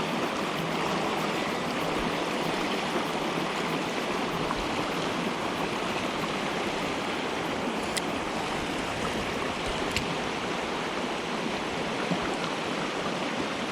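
Mountain stream water rushing steadily, with two faint clicks about eight and ten seconds in.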